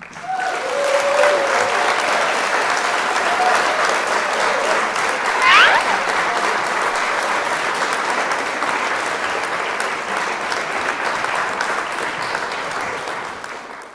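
Crowd applauding at a steady level, with a few shouts near the start and a rising whistle about five and a half seconds in; it dies away near the end.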